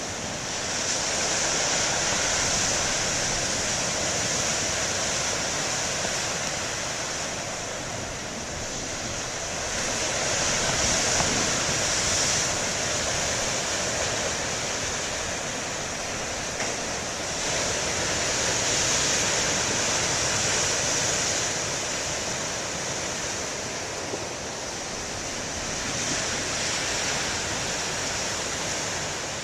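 Ocean surf breaking on a beach: a steady wash of noise that swells and eases several times as the waves come in and run back.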